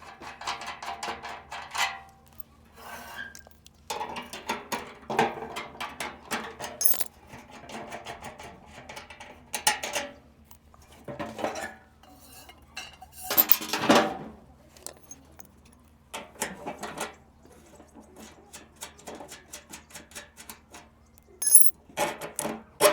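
Irregular metallic clanking and knocking as a bent metal satellite dish is handled and worked back into shape, with louder clusters of clanks now and then.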